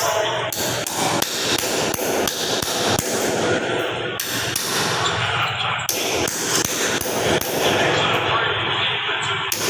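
Repeated hammering: sharp, irregular strikes several times a second over a continuous noisy background.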